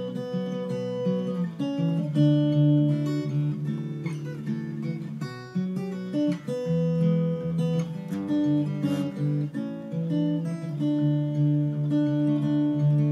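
Acoustic guitar playing an instrumental tune: plucked melody notes ringing over lower chord notes.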